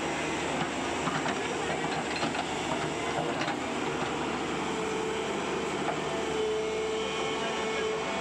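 Tata Hitachi EX200 excavator's diesel engine running steadily under digging load, with a steady whine that grows stronger about halfway through. A few knocks and scrapes of the bucket in soil and stones come in the first few seconds.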